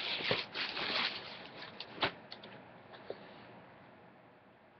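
Handling noise as a pair of sneakers is lifted out of a shoebox: rustling and light clicks in the first second or so, then a single sharp knock about two seconds in, fading to quiet.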